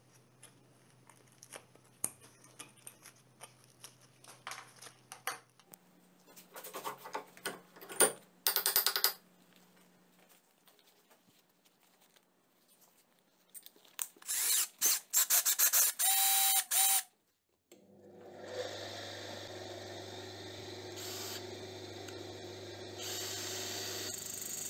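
Metal clicking and scraping as a screwdriver works at a slotted steel CO2 airgun cartridge clamped in a vise, followed a little past the middle by a run of short, loud, rapid bursts. Then a bench grinder-type motor starts and runs with a steady hum. The spinning cartridge, held in a cordless drill, is pressed against the wheel near the end, and the grinding noise grows louder.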